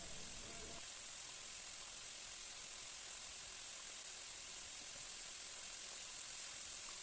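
Masala gravy simmering in oil in a karai: a steady, soft sizzle as its water cooks off.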